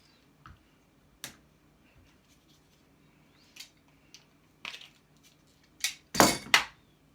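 Metal scrap parts being handled during dismantling: scattered light clicks and knocks, then a louder clatter of several knocks about six seconds in.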